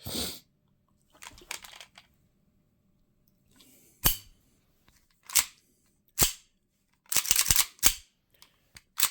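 KWC-made 1911 CO2 air pistol being fired: three single shots about a second apart, then a quick string of shots, with some handling noise before the first shot. The gun works normally after its slide and lower are swapped between two brands.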